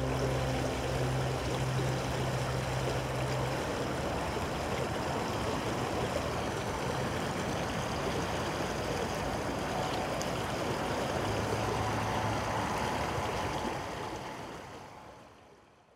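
Steady rush of flowing water, fading out over the last couple of seconds.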